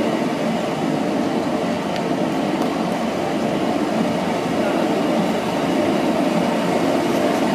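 Seitan (gluten) maker machine running as it kneads flour and water in its stainless-steel hopper: a steady mechanical rumble of the motor and mixer.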